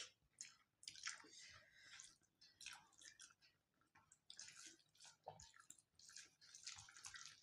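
Faint, scattered wet smacks and clicks of people eating rice by hand: chewing and mouth sounds, with fingers working rice on a steel plate.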